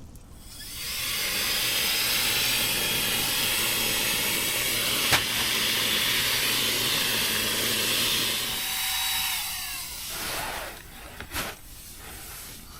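Small electric air pump running steadily, blowing air into a Therm-a-Rest NXT Max sleeping pad, with a click about halfway through; it stops about ten seconds in.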